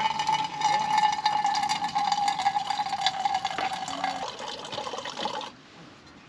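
Water pouring, with a steady tone that slowly falls in pitch; it cuts off suddenly about five and a half seconds in.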